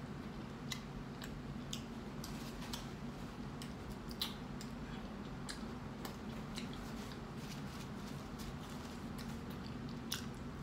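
Close-miked mouth sounds of a woman chewing a mouthful of burrito: wet smacking and many small sharp clicks, scattered unevenly, over a steady low hum.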